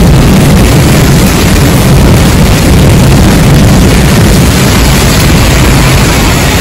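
Heavy thunderstorm rain pouring down, a loud steady roar with a strong low rumble.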